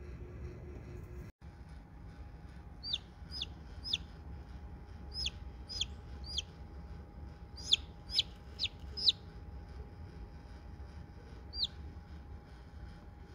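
Newly hatched chicken chick peeping: about a dozen short, high, falling peeps in small clusters, with a last single peep near the end, over a steady low hum.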